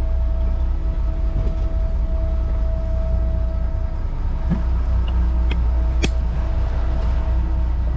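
Inboard engine of a 1997 Albin 34 motor boat running steadily underway: a deep even rumble with a steady hum. A single sharp click about six seconds in.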